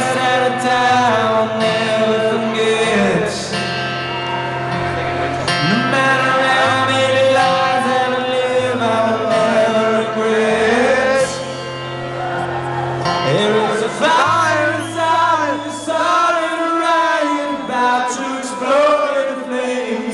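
Live solo acoustic rock performance: a man singing over a strummed acoustic guitar, with long held low notes underneath.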